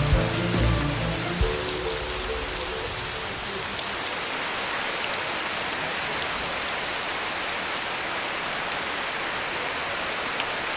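Steady rain falling, an even hiss. In the first few seconds a low hum and a couple of knocks fade out under it.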